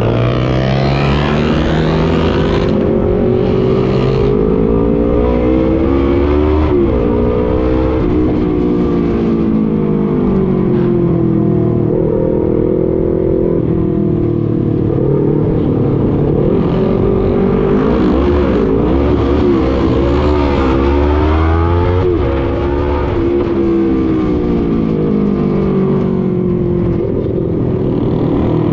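Motorcycle engine running while riding, its pitch rising and falling several times as the throttle is opened and eased, over a steady rush of wind and road noise.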